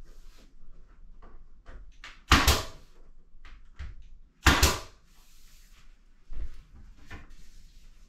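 Nail gun firing twice, about two seconds apart, each shot a sharp crack with a short tail, as window trim is nailed up; a softer thump follows near the end.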